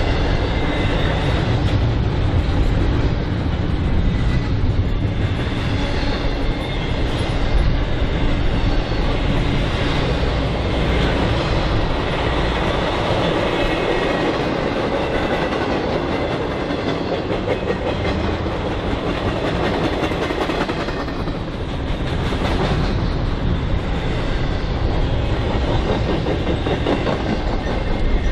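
BNSF intermodal freight train's trailer-carrying cars rolling past close by. The wheels run on the rails with a steady, loud noise that does not let up.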